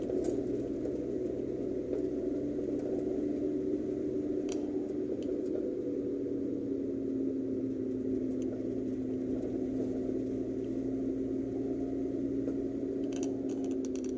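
Car engine and road noise heard from inside the cabin while driving: a steady hum whose pitch sinks slightly, over a low rumble. A quick run of light clicks comes near the end.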